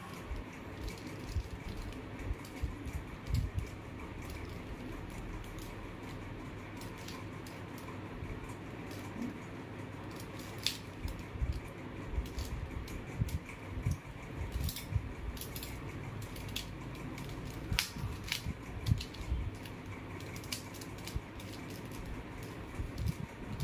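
Plastic mirror cube being turned by hand: irregular clicks and clacks of its layers, in short quick runs with pauses between, over a steady low hum.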